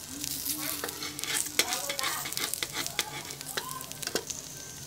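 An egg frying in a hot steel wok, sizzling steadily with many small pops and crackles.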